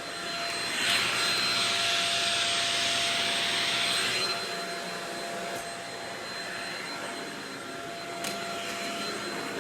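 Shark Rocket vacuum cleaner running, a steady rushing hiss with a thin high whine, louder for about three seconds from about a second in, then running on more quietly.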